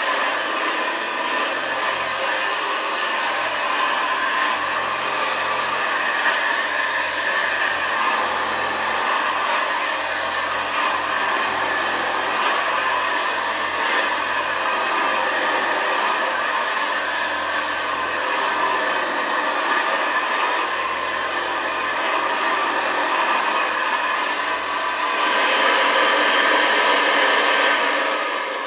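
1959 Hoover Senior 638 upright vacuum cleaner running steadily with its newly fitted replacement paper bag, getting louder about three seconds before the end.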